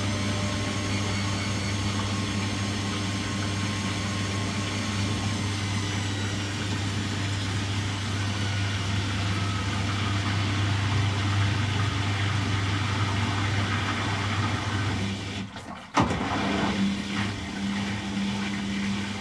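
Beko WTG620M1 washing machine running with a steady hum and a high motor whine that slowly falls in pitch. About sixteen seconds in the sound briefly drops away and there is a sharp click, after which a lower, different hum carries on.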